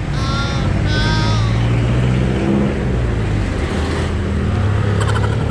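Yamaha R3's parallel-twin engine idling steadily through an open aftermarket muffler. Two short high chirps sound near the start, and a few clicks sound near the end.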